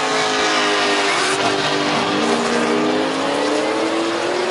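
Car engine accelerating hard down a drag strip, its pitch climbing steadily, with a brief drop about two seconds in at a gear change before it climbs again.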